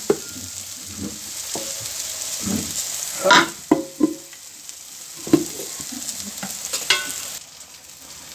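Raw plantain cubes sizzling in hot oil in a nonstick frying pan, stirred with a perforated metal spoon that scrapes and knocks against the pan. The sizzle falls away near the end.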